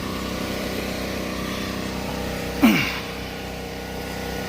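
A steady motor hum, with one short, loud sound about two and a half seconds in whose pitch drops quickly.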